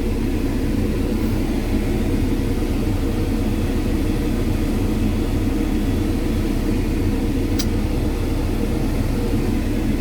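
Cat 312 excavator's diesel engine running steadily, a constant low drone, with one short click a little past the middle.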